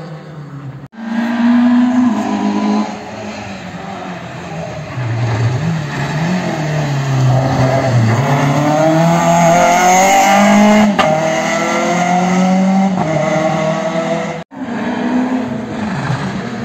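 Rally car engines revving hard and shifting through the gears through a tight junction, the engine pitch climbing and falling again and again. The sound breaks off abruptly about a second in and again near the end.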